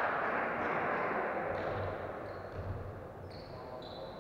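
Echoing sports-hall noise from players on a volleyball court, louder at the start and fading, with a couple of dull thuds around the middle and short high squeaks near the end.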